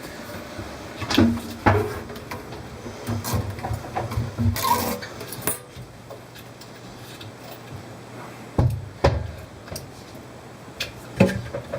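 Scattered knocks, bumps and rubbing sounds of hands-on handling work, over a low steady hum.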